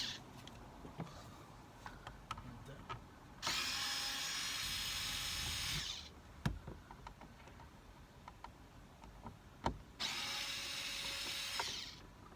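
Cordless drill-driver with a Torx bit running in two steady bursts, one of about two and a half seconds and a shorter one near the end, backing out the screws of a plastic lower dash trim panel. Small clicks and knocks come between the bursts.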